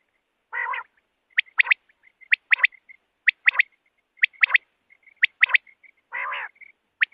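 Common quail calling: sharp, clipped notes in quick groups of two or three, about one group a second. A longer, harsher raspy call comes about half a second in and again about six seconds in.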